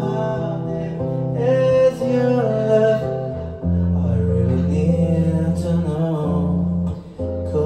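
A man singing a slow ballad over acoustic guitar, the chord underneath changing about halfway through and again near the end.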